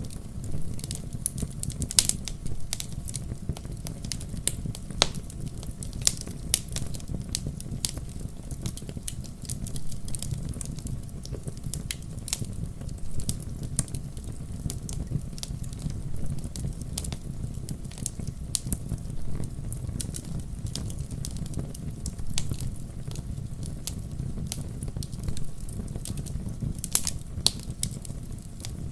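Wood campfire burning: a steady low rumble of flames with many sharp, irregular crackles and pops from the burning wood.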